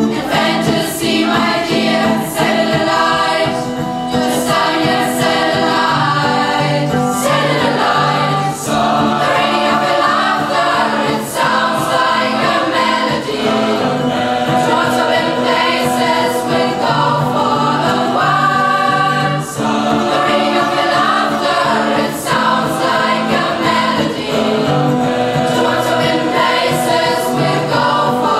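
A school choir singing in concert, many voices together over sustained low notes.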